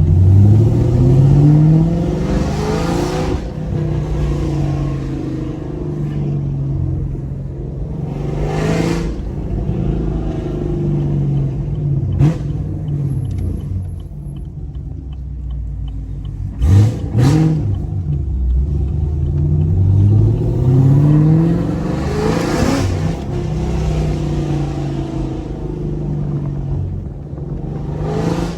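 Chevrolet Camaro SS 1LE's naturally aspirated V8 pulling up through the gears of its manual gearbox, the pitch rising and then dropping at each upshift. There is a short sharp rev blip a little past the middle, then it accelerates through the gears again.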